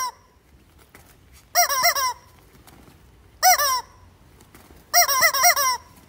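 Rubber chicken squeaky toy squeezed in quick bursts of several squawks, four times over. The squawks are the cue telling the players which numbered square to jump to.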